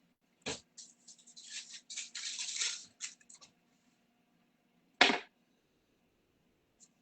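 Kitchen handling noises: a knock, then a couple of seconds of rustling and scraping, then one sharp bang about five seconds in, the loudest sound, and a faint click near the end.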